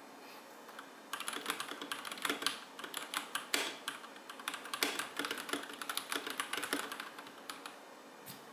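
Typing on an RK Royal Kludge RK100 mechanical keyboard, fitted with what the owner thinks are red switches. A fast, uneven run of key clacks starts about a second in.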